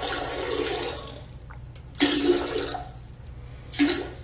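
Toilet flushing, water rushing steadily in the bowl and easing off about a second in, followed by two short, louder bursts of water sound.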